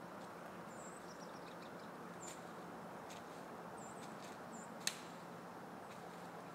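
Quiet woodland ambience with a steady hiss, a few short, thin, high bird chirps, scattered faint ticks and rustles, and one sharp click about five seconds in.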